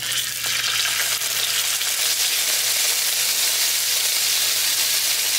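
Chicken breast sizzling steadily in hot oil in a frying pan, just turned over with tongs after its skin was seared crisp, and now cooking on the other side over medium-low heat.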